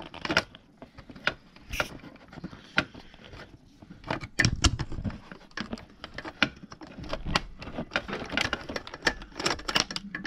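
Handling noise on a workbench: irregular small clicks, taps and rustles as the plastic front panel of a bench power supply and tools are moved about, busier near the end.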